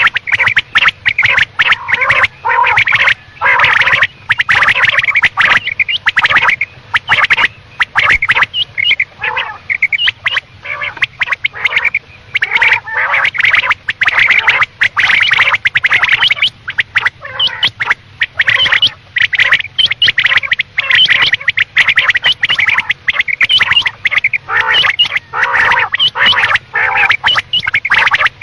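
Quail calling: short notes repeated in quick succession with only brief pauses, from a quail-call recording of the kind played as a lure for quail hunting.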